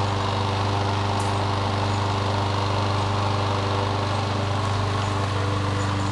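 A steady low hum at a constant pitch, like a running engine or motor, with a faint hiss over it.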